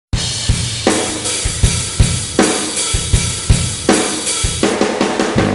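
Intro music opening on a rock drum beat: repeated bass-drum kicks and snare hits, with a cymbal crash about every second and a half.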